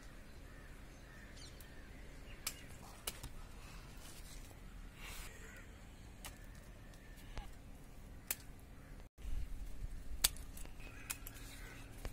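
Crows cawing faintly in the background, with a few sharp, isolated clicks of pruning shears snipping through eggplant stems.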